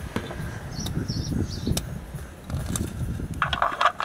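Hand and tool handling at the oil drain plug: low rustling and knocks, scattered sharp clicks, and a quick run of metallic clicks near the end as a socket goes onto the plug.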